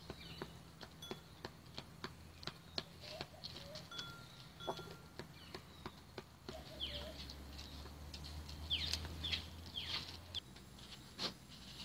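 Chickens and Australian brush-turkeys pecking at grain scattered on hard ground: frequent sharp taps, with short high chirping calls and a cluster of quick falling chirps about seven to ten seconds in. A faint low hum runs underneath.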